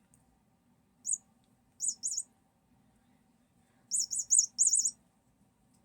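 Electronic chirping from a cat's toy bird: short high chirps, one about a second in, two just before the two-second mark, then a quick run of four around four seconds.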